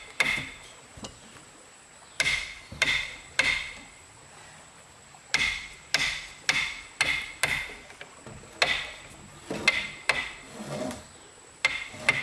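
Hammer striking timber, in runs of two to five blows about half a second apart with short pauses between them; each blow rings briefly.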